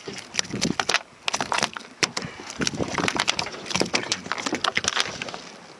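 A small sea bream flapping on a boat deck, a rapid irregular run of slaps and sharp clicks as its body and the metal jig hooked in its mouth knock against the deck.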